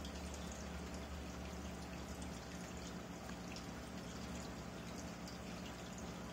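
Aquarium filter running: water trickling and splashing steadily, with a low steady hum underneath.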